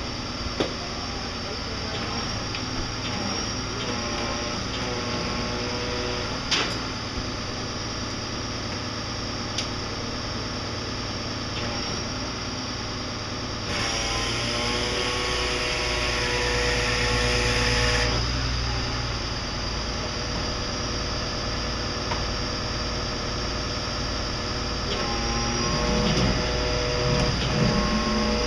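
A vehicle engine running steadily under the murmur of bystanders' voices, with a few light knocks. About halfway through, a loud hiss rises for about four seconds and then stops.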